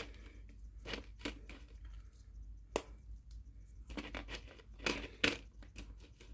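Chocolate bar packaging being torn and crinkled: a scatter of short, sharp rustles and crackles, bunched together in the middle of the stretch.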